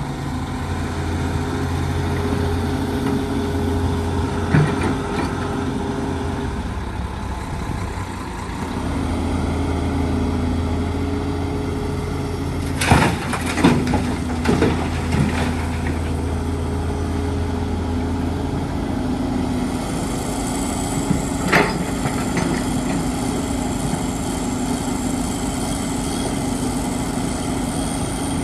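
Diesel engine of a working excavator running steadily, its load and pitch dipping and picking up again partway through. Several sharp clanks and knocks break in: a cluster a little under halfway, and single ones earlier and later.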